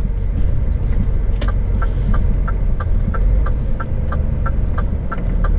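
Scania S500 truck's diesel engine running, heard from inside the cab. About a second and a half in, a steady rapid ticking starts, about three ticks a second: the turn-signal indicator as the truck turns in.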